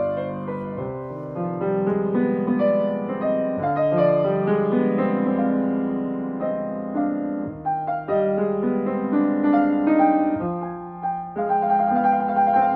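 Steinway & Sons grand piano being played: a melody over sustained chords, notes ringing and overlapping.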